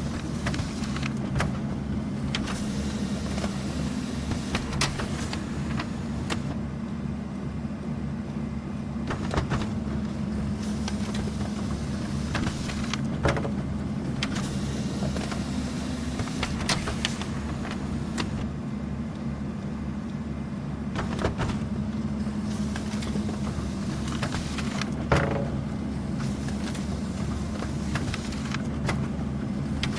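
An office printer running steadily with a motor hum and paper-feed noise, which thins out for a few seconds now and then. A sharper click comes every few seconds as pages go through.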